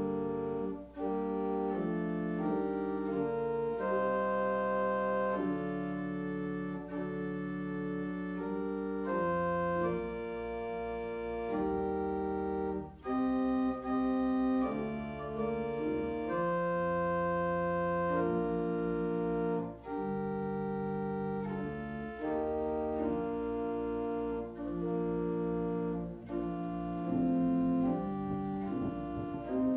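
Organ playing slow, held chords, with deep pedal bass notes coming in about ten seconds in.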